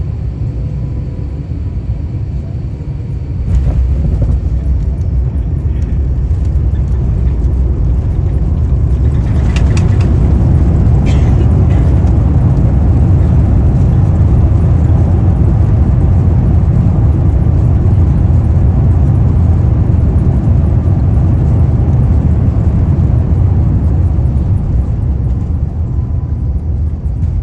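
Cabin noise of an Airbus A350-900 landing, heard from inside the cabin: the low rumble jumps suddenly about three and a half seconds in as the wheels touch down on the runway. It grows much louder around ten seconds in as the Rolls-Royce Trent XWB engines spool up into reverse thrust during the rollout, holds steady, then eases near the end as the aircraft slows.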